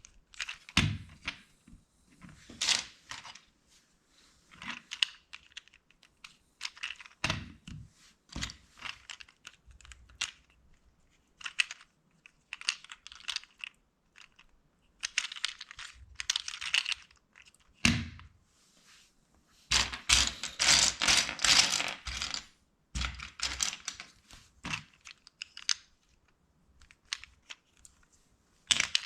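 LEGO bricks being handled and pressed together: irregular sharp plastic clicks and snaps with some rustling, and a dense run of clatter lasting about two seconds around twenty seconds in.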